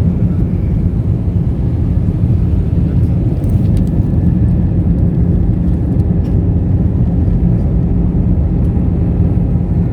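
Steady drone of an airliner's engines and rushing air, heard inside the passenger cabin, with a low hum running through it.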